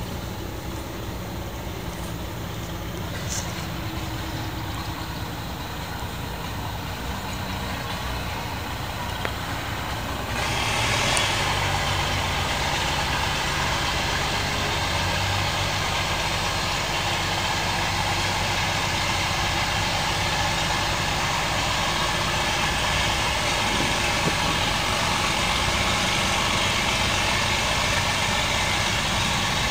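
An engine idling steadily. About ten seconds in, the sound gets louder, with more hiss and rush added over the idle.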